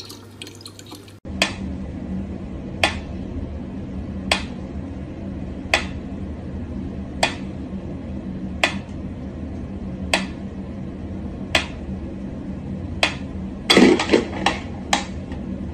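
Mechanical pyramid metronome ticking slowly, one sharp tick about every second and a half, over a low steady hum. Near the end comes a short run of quick knocks and ticks.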